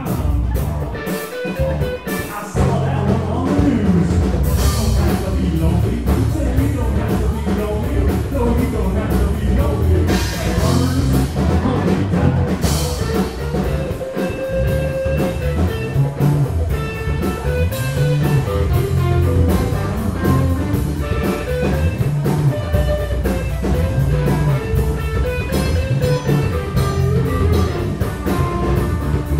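Rock band playing live: drum kit with cymbal crashes, electric bass and electric guitar, the full band dropping out briefly about two seconds in before coming back in.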